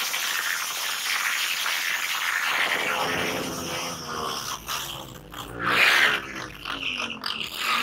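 Motorcycle burnout: the rear tyre spins and screeches on the pavement while the engine revs up and down, with a loud surge about six seconds in.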